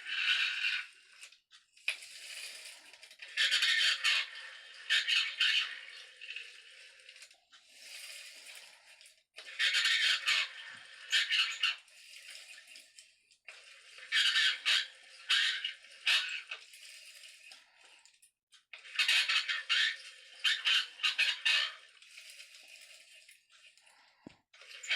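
Vintage Action Man Talking Commander voice box playing its recorded commands after being pulled on a newly replaced cord: a thin, scratchy voice with no bass, in about five or six bursts of one to three seconds, a few seconds apart.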